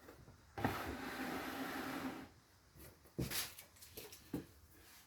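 Items being handled on a workbench: a sliding rub lasting about a second and a half, then a few light knocks as things are set down.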